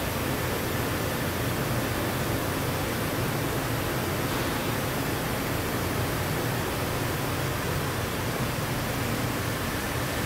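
Hand-held welding arc running along an aluminium pressure-vessel seam: a steady hiss with a low hum underneath.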